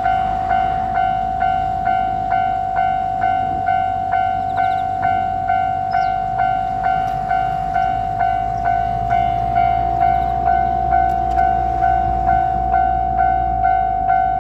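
Japanese level-crossing warning bell ringing its 'kan-kan', about two strikes a second over a steady ringing tone, the signal that a train is approaching. A low rumble grows in the second half as the train nears.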